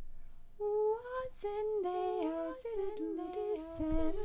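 A voice humming a wordless melody in short held notes that step up and down with little glides between them, starting about half a second in.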